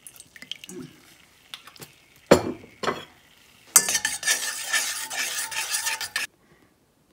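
A metal spoon stirring sugar syrup in a stainless steel saucepan, scraping and clinking against the pan. A couple of sharp knocks come first, then about two and a half seconds of brisk stirring that cuts off suddenly.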